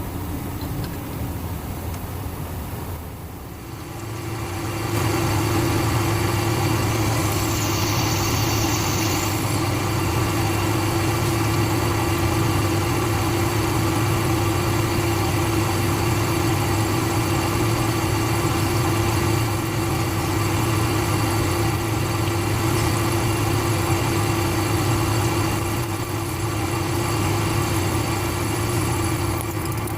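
Metal lathe running with a steady, even hum, getting louder about five seconds in and holding steady after that.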